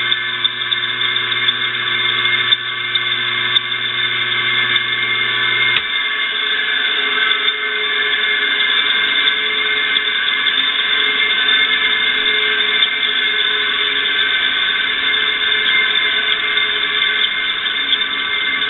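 Old exhaust-fan electric motor running on freshly oiled bearings with a steady high whine, still squeaking and grinding a little, which the owner puts down to dust having scratched the bearings. A low hum in it stops about six seconds in while the whine carries on.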